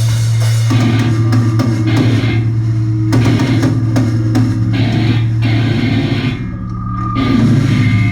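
Live hardcore punk band playing loud, with distorted guitar, a heavy sustained bass note and a pounding drum kit with cymbals. The band drops back briefly about six and a half seconds in, then comes back in at full volume.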